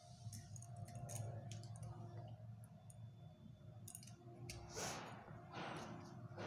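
Faint clicks and rustling of plastic switch plates and insulated wires being handled, with a louder rustle about five seconds in.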